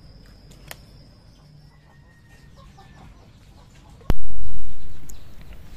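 Faint clucking of chickens over a quiet outdoor background. About four seconds in, a sharp click is followed by a sudden loud low rumble that fades over about a second.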